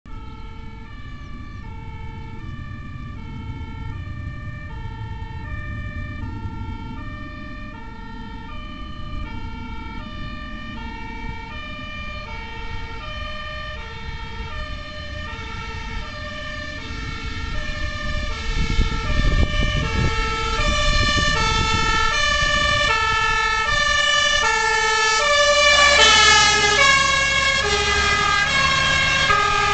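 Fire engine's two-tone siren alternating steadily high and low, growing louder as it approaches on an emergency run. Near the end it passes, the tones drop in pitch, and its engine rumble is heard under the siren as it drives away.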